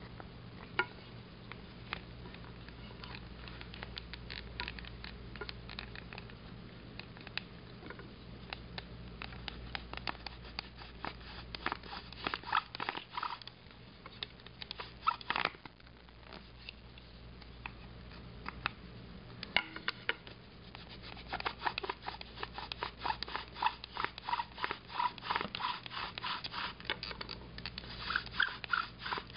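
Bow drill at work: a live oak spindle spun back and forth in a live oak fireboard by the bow, giving a rhythmic dry scraping with every stroke as the spindle burns into the board. The strokes come faster and louder about two-thirds of the way through.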